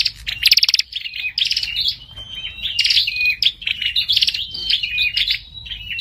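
Prenjak kepala merah, a small Indonesian songbird, singing loudly: bursts of rapid trilled chirps alternating with short, high whistled notes, phrase after phrase with brief gaps.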